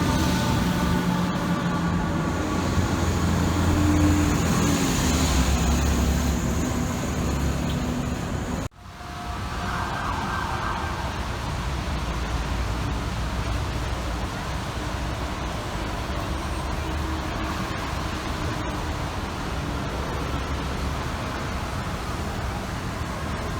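FDNY fire apparatus sirens sounding through city street traffic over engine rumble. The sound breaks off abruptly about nine seconds in, then a siren wavers quickly for a second or two, and a siren rises again near the end.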